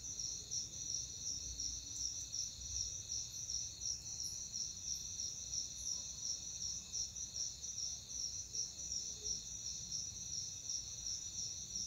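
Insects chirping steadily in the background: an even, fast, high-pitched pulsing that does not change.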